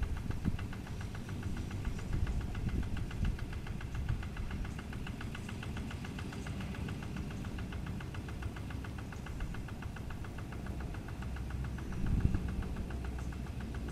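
Kubota RD110Di-2T single-cylinder diesel engine on a two-wheel hand tractor running steadily with a fast, even knock. It gets louder briefly just after the start and again about twelve seconds in.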